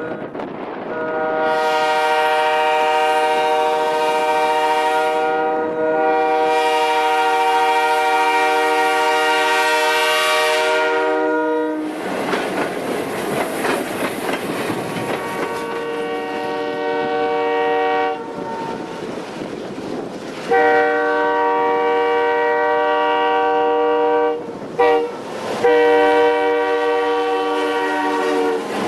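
Diesel locomotive multi-chime air horn sounding a series of blasts, two long, then long, long, short, long, the grade-crossing warning. Between the blasts the passing train's wheels click over the rails.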